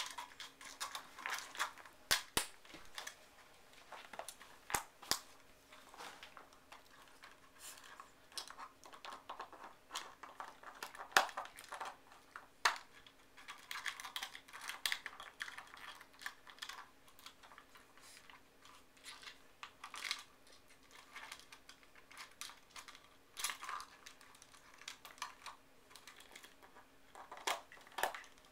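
A raccoon handling a plastic treat bottle, with irregular clicking, tapping and crinkling as she grips, bites and rolls it, and a few sharper clacks, the loudest about two seconds in and around eleven seconds. A faint steady hum lies underneath.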